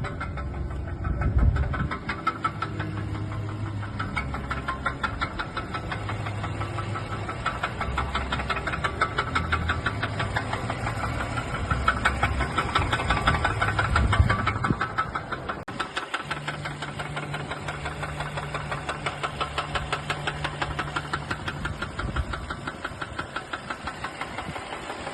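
Mercedes A220 engine running with a rhythmic knock, the fault for which the engine is being rebuilt. The sound changes abruptly about two-thirds through to a steadier low hum under the same fast ticking.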